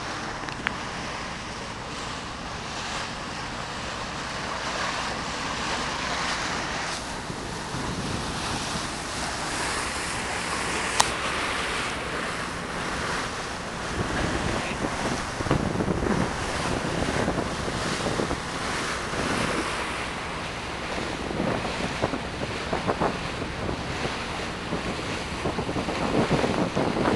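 Wind buffeting the microphone over water rushing and splashing along the hull of a boat under way, swelling in gusts. A single sharp click stands out partway through.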